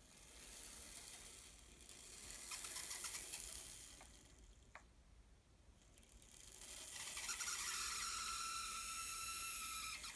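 Fleischmann N-scale 040D model locomotive's small electric motor and gears running with a high-pitched whine that swells louder twice. The noise is the motor fault the owner is showing.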